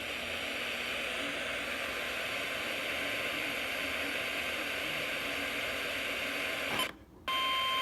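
Radio static hiss, then a click and a brief dropout about seven seconds in, followed by the start of a steady, single-pitch alert tone: the NOAA Weather Radio warning alarm that announces a flash flood warning.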